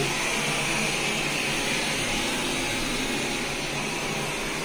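Steady hiss of steam pouring from a steam-bath generator's outlet into a steam room.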